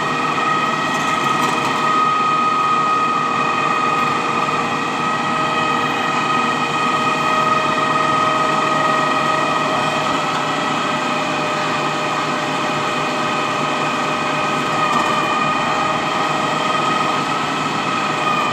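Truck-mounted concrete boom pump running steadily while its boom is being folded closed, with a constant high-pitched whine over the engine noise.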